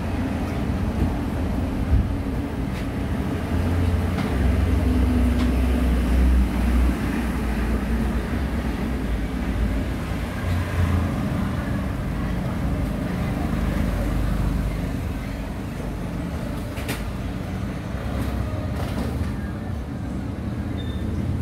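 Steady low rumble of a motor vehicle engine running, with a few brief clicks.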